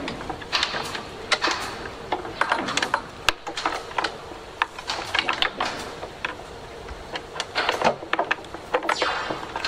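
Irregular metallic clicks, taps and rattles of quick-release rigging pins, their lanyards and connector plates being handled and fitted into line array speaker cabinet rigging, with some brief rustling of hands on the cabinets.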